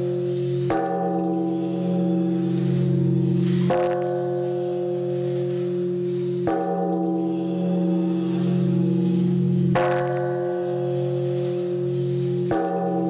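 Large temple bell struck with a wooden log striker, five strokes about every three seconds. Each stroke rings on with a sustained hum that runs into the next.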